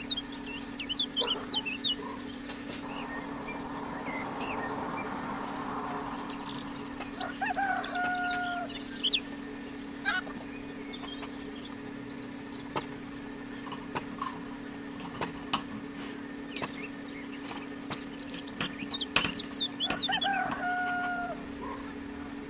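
Bird calls in the background: a long, level call heard twice, about 7.5 s in and again near 20 s, with scattered high, quick chirps, over a steady low hum.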